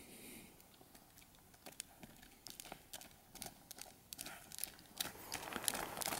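Faint, scattered clicks and crunches of a bull caribou's hooves stepping on a gravel road. The steps grow more frequent and louder near the end as the animal comes closer.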